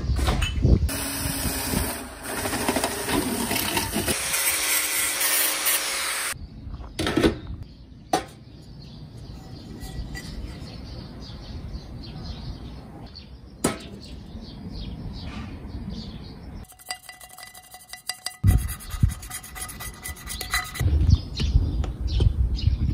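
Workshop handling sounds on stainless steel and a tin can: marker and steel ruler scraping and tapping on the pan, light metal clinks and knocks, in several short spliced takes.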